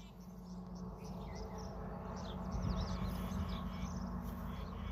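Small birds chirping in short, quick calls over a low steady rumble.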